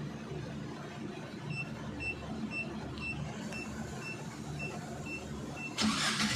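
Dongfeng C32 truck's cab warning beeper sounding a short high beep about twice a second, then near the end a sudden loud rush of noise as the engine is started.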